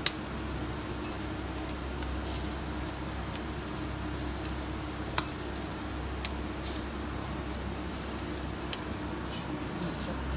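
Yakitori skewers sizzling over a commercial gas grill with charcoal burning on it: a steady hiss over a low hum, with a few sharp pops or clicks.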